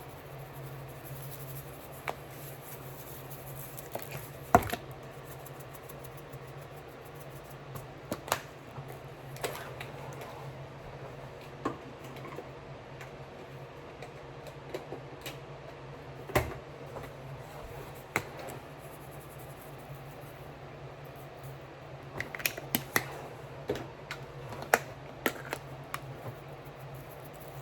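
Scattered light clicks, taps and a few sharper knocks of spice containers and utensils being handled while seasoning meat, over a steady low hum. There is a louder knock about four seconds in, another near the middle, and a quick run of clicks near the end.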